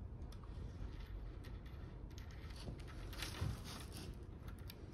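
Faint handling noise of a steel brake cable being worked into a scooter's rear disc brake caliper: scattered small clicks and a rustle, with a soft knock about three and a half seconds in.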